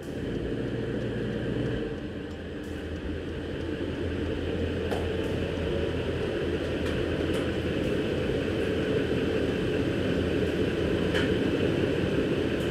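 Duramax diesel V8 of a GMC Sierra HD pickup running at low speed as the truck creeps up the driveway into the garage, a steady rumble that grows louder as it comes closer.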